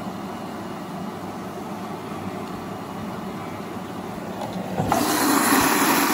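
LG 5 kg front-loading washing machine running mid-cycle with a steady churning noise; about five seconds in, a louder rushing hiss starts.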